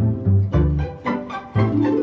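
Background music: light plucked and bowed strings with a bouncing bass line, about two notes a second.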